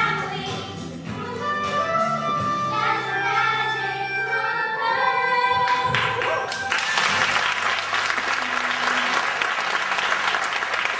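A group of children singing with musical accompaniment, ending the song on a long held note; about six and a half seconds in, the audience breaks into applause that continues.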